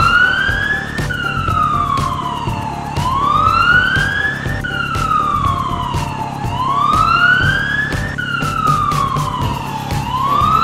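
Police car siren wailing, its pitch sliding slowly up and then down about once every three and a half seconds.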